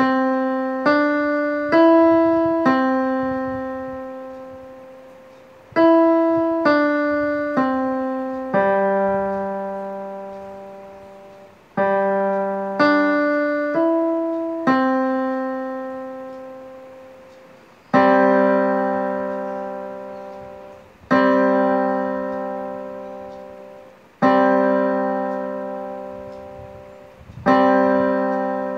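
Electronic keyboard on a piano voice playing the grandfather clock chime tune: three four-note phrases, then four slow, single chord strikes like the clock striking the hour, each left to ring and fade.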